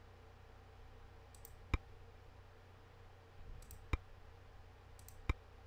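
Three single sharp computer mouse clicks, spaced about one to two seconds apart, over a faint steady low hum.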